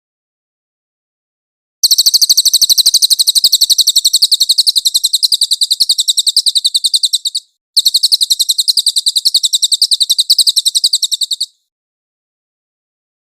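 Cililin bird song: long, very fast high trills of rapidly repeated notes, one bout of about five and a half seconds and, after a brief break, another of about four seconds, with dead silence before and after.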